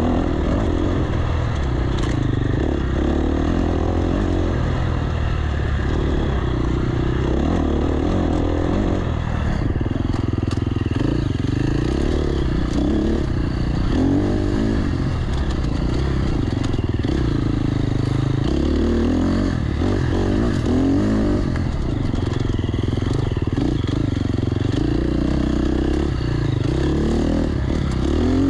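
Dirt bike engine running under constant throttle changes, its pitch rising and falling every second or two, with occasional knocks and rattles.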